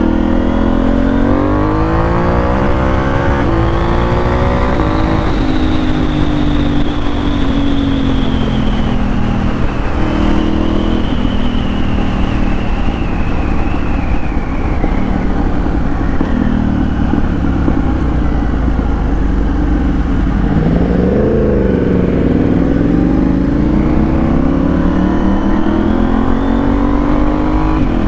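Motorcycle engine heard from the rider's seat, pulling up through the gears with its pitch climbing in steps over the first few seconds, then easing off and falling away. Near the two-thirds mark it drops briefly and rises again, climbing steadily to the end over a constant rush of road and wind noise.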